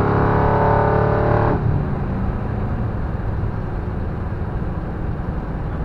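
Lincoln Town Car V8 with headers and a 2.5-inch exhaust, heard from inside the cabin: a loud, steady exhaust drone under throttle. About a second and a half in the throttle is released and the note drops suddenly to a quiet low rumble with road noise as the car coasts.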